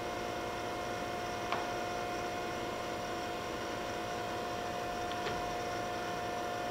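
Okamoto ACC-1224 ST surface grinder's hydraulic unit running idle: a steady hum with a constant high whine. Two faint clicks come about a second and a half in and again past five seconds.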